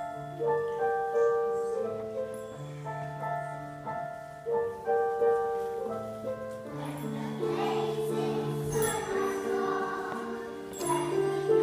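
Upright piano playing the introduction to a Christmas carol, then a children's choir starts singing with it about seven seconds in.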